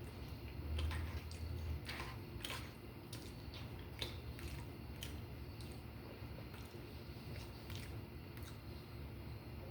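Close-up chewing of soft hashbrown casserole shepherd's pie, with wet mouth clicks and smacks scattered throughout.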